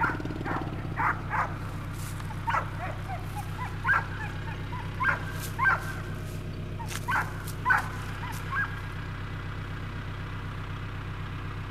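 A dog yipping and barking in a dozen or so short, irregularly spaced bursts that stop about nine seconds in, over a steady low hum.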